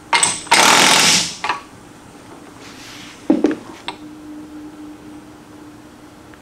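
Impact wrench hammering on the pinion nut of a Dodge 8¾-inch differential in short bursts: a quick one, a longer one lasting under a second, then a brief last one. It is tightening the nut to crush the crush sleeve for pinion bearing preload. A couple of sharp metal clicks from handling the tools follow.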